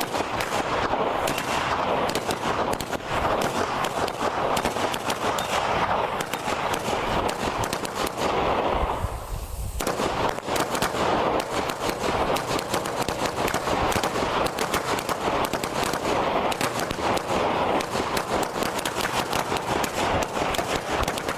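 A string of Chinese firecrackers going off in rapid, continuous crackling that sounds like machine-gun fire. The cracking softens briefly about nine seconds in, then picks up again.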